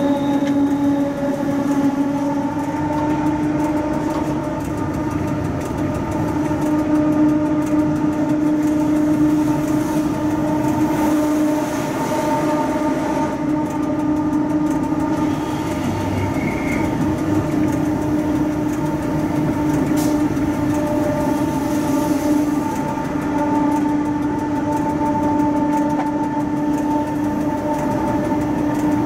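Cab interior of a Rhaetian Railway Ge 6/6 II electric locomotive under way: a steady electric hum of several tones over the running noise of the wheels on the rails. A single sharp click about twenty seconds in.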